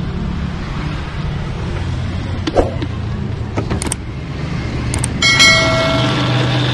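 Countertop blender: a few clicks and knocks as the jar and lid are handled, then, a little over five seconds in, the motor starts and runs with a steady whine, blending an iced drink. A steady low hum lies under it throughout.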